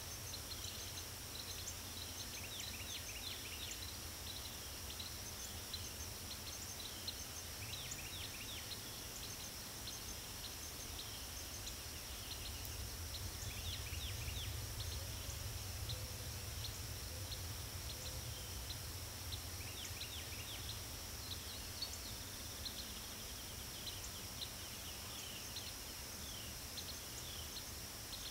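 Dawn chorus of crickets and birds: the crickets' steady high trill runs on without a break, while birds call over it in many short, quick chirps that fall in pitch. A low steady rumble sits underneath.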